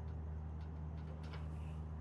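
Steady low hum with a few faint metallic ticks about a second and a half in, from a wrench working the carrier bearing mount bolts.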